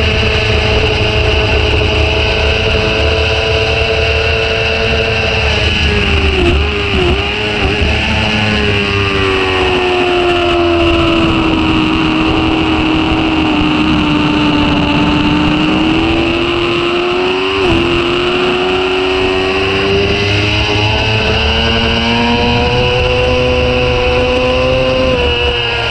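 Sport motorcycle engine heard from on board: running high, then dropping with a few quick throttle blips as the rider brakes and downshifts from fifth to second about six to eight seconds in. It pulls low through a slow corner, then climbs steadily as the bike accelerates out and shifts up, over a steady hiss.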